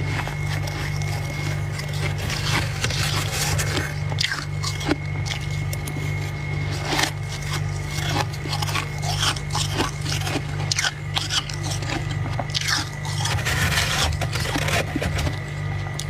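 Freezer frost being bitten and chewed, with irregular crunches close to the microphone, over a steady low hum.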